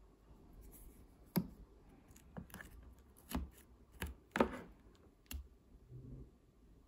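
A few soft, scattered clicks and taps, about seven in all: a plastic fork knocking against a plastic food container as it spears chunks of cut pineapple.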